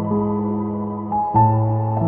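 Slow, sustained piano music for sleep, new-age in style. A few single notes enter over held tones, and a fuller low chord is struck about one and a half seconds in.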